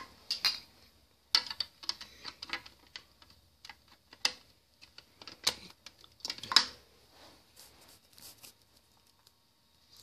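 Hard plastic marble-run parts and marbles clicking and clattering together in irregular sharp knocks, with a few louder clacks and fewer clicks near the end.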